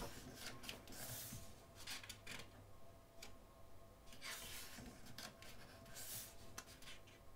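Thick, glossy pages of a program book being turned and smoothed flat by hand: faint paper rustles and swishes, three or four times.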